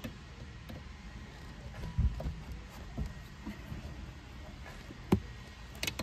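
A few separate clicks and knocks of needle-nose pliers and small metal parts against the seat-back's wire frame, with a dull thump about two seconds in and the sharpest click about five seconds in, over a low steady rumble.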